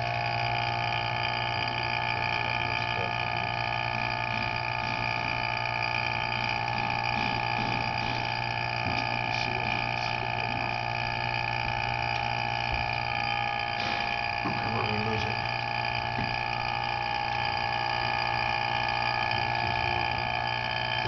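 Electric vacuum pump of a valve-body vacuum tester running steadily with a constant hum and whine. It is pulling vacuum on the governor circuit of a transmission valve body to check it for leaks.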